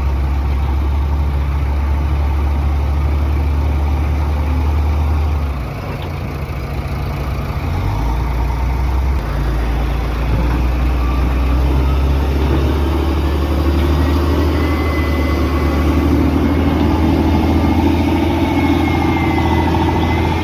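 Heavy earthmoving machine's diesel engine running steadily. It drops back briefly about six seconds in and picks up again, and a thin whine comes in over it in the latter part.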